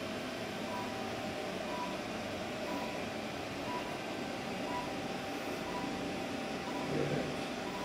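Therapy laser unit giving a short high beep about once a second while its probe is emitting, over a steady machine hum.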